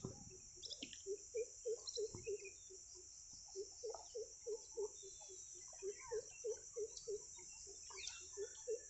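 Runs of short, low, pitched animal calls, about three or four a second, repeating several times over a steady high insect chirring.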